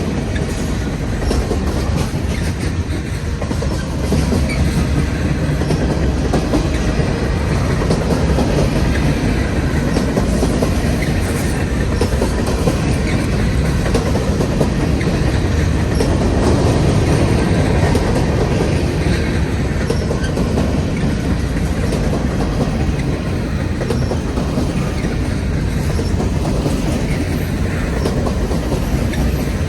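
Freight cars of a long freight train rolling past at speed: a steady rumble of steel wheels on rail with repeated clicks as the wheels cross rail joints.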